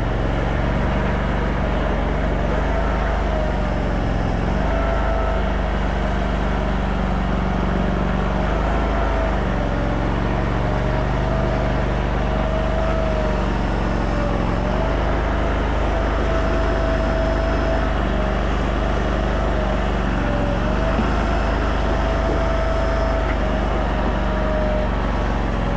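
Mini stand-up skid steer's 739 cc Predator gas engine running steadily under work, with a whine that rises and falls in pitch.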